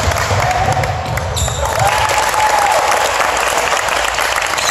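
A basketball being dribbled on a hardwood gym floor, with repeated low bounces, and sneakers squeaking twice, the longer squeak about two seconds in. Throughout there is a loud, echoing din of crowd noise and clapping in the gym.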